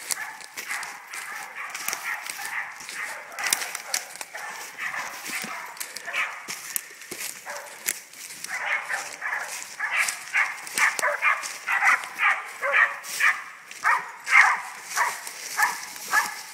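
Hog dogs barking over and over, the barks coming quickly, about two a second, from about halfway through. Footsteps crunch through leaf litter and brush.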